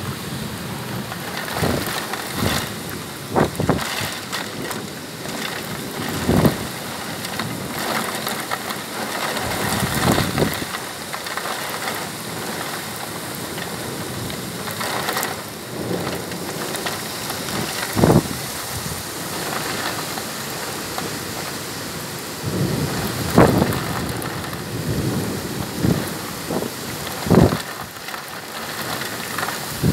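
Violent thunderstorm: a heavy downpour making a steady rushing hiss, broken by frequent sharp cracks and bangs of thunder, the loudest about 18, 23 and 27 seconds in.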